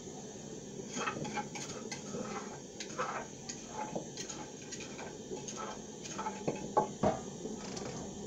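Irregular clinks and taps of kitchen utensils against a metal cooking pot as ground red pepper is added to the plantains, with a few louder knocks about two-thirds of the way through.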